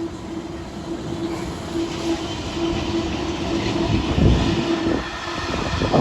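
Freight train headed by a Class 66 diesel locomotive passing on the main line: a steady rolling rumble of wheels on rail with a held, slightly pulsing hum, heavier about four seconds in and thinning out near the end.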